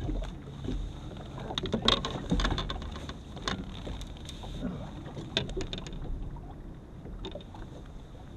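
Scattered knocks and clicks of a landing net and fishing tackle being handled aboard a fishing boat, over a low steady rumble.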